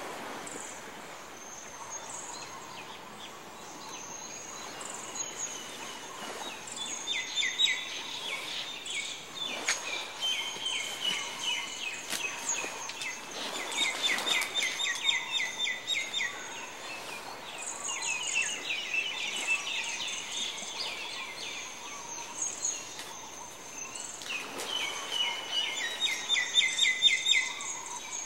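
Songbirds singing: fast trilled phrases of short, falling chirps, repeated every few seconds, with thin high notes between them, over faint background hiss.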